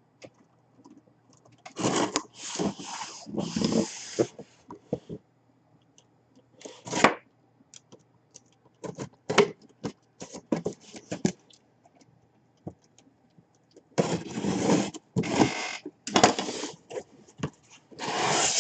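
A box and its packaging being opened and handled by hand: bursts of scraping and rustling, with scattered clicks and knocks in between.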